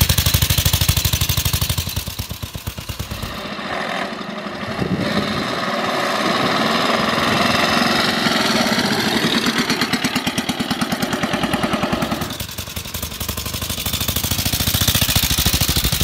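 Norton 16H motorcycle's single-cylinder side-valve engine running as it is ridden, its exhaust a rapid, even stream of beats. The beat grows less distinct and hissier for several seconds in the middle and comes back strongly near the end.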